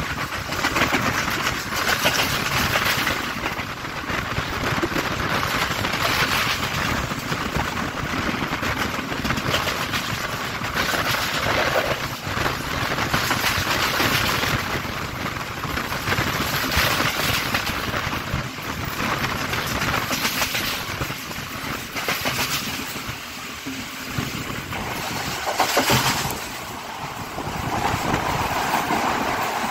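Express train carriage running at speed, heard from an open door: a steady rumble and clatter of wheels on the rails with wind rushing past. Near the end a thump is followed by a changed sound as the train runs alongside a station platform.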